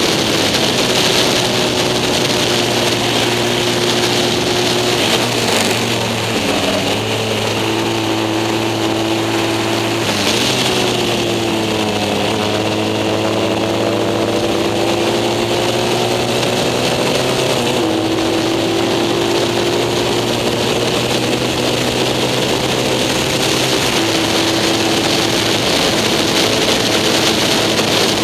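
Racing sidecar outfit's engine running hard, heard from the outfit itself with wind rush over the microphone. Its pitch holds steady between gear changes and steps several times. Around the middle it drops and then climbs back up as the outfit slows for a corner and accelerates out.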